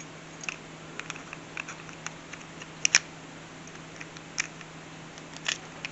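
Scattered small plastic clicks and taps of a Nissan Murano remote key fob being handled while its metal emergency key blade is fitted back into the fob, with a sharper double click about three seconds in.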